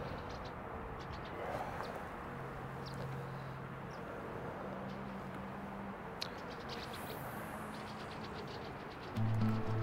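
Steady outdoor background noise with a few short, high bird chirps scattered through it. Background music with a clear bass line comes in loudly near the end.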